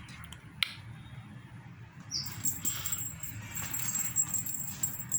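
Toy duck playing tinny, jingling electronic music that starts about two seconds in, after a single sharp click.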